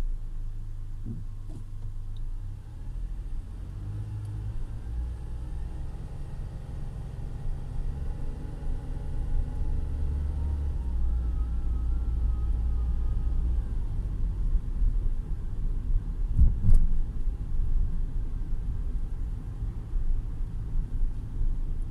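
Mitsubishi eK X Cross driving with a steady low rumble. Through the middle, a faint whine rises in pitch and then wavers for a couple of seconds; this is the abnormal CVT noise the owner is recording. A single knock comes about 17 seconds in.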